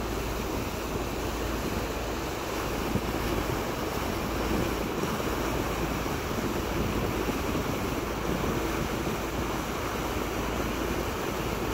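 Steady rush of wind buffeting the microphone, mixed with water noise, on the deck of a ferry.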